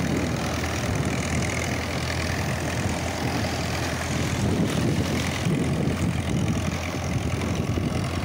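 Tractor's diesel engine running steadily under load as it pushes a fishing boat through the shallow surf, with waves washing at the water's edge.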